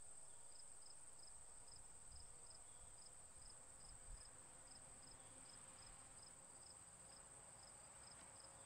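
Faint insect chirping: a steady high buzz with a quieter, regular chirp repeating about once a second.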